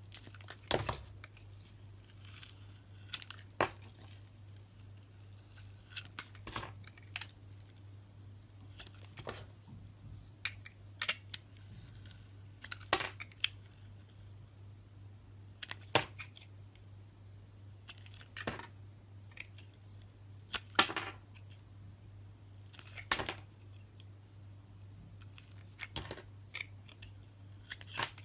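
Crisp cuts and crunches in a crunchy material at irregular intervals, a sharp snap every second or two, over a steady low hum.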